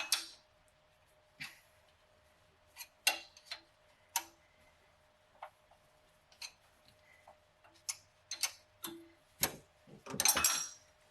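Ratchet wrench clicking in short, irregular runs of sharp metallic clicks while a stubborn exhaust manifold bolt is worked loose, with a quicker, louder flurry of clicks near the end.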